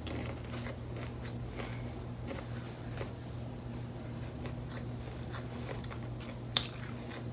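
A person chewing a crunchy hard-shell taco close to the microphone: a run of small crunches and wet mouth clicks, with one sharper crunch near the end.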